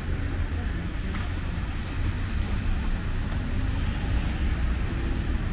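City street traffic in the rain: a steady hiss with a continuous low rumble of vehicles.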